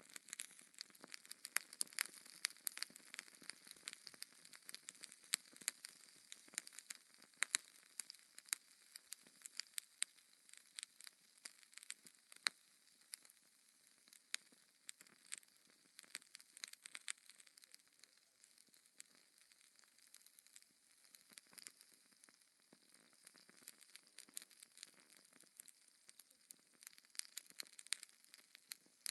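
Wood fire crackling: irregular sharp pops and snaps over a soft hiss, thinning out a little midway and picking up again near the end.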